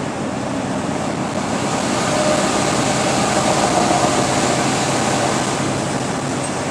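Steady road noise inside a loaded tractor-trailer's cab driving on a wet highway: engine drone mixed with tyre and spray hiss, a little louder in the middle.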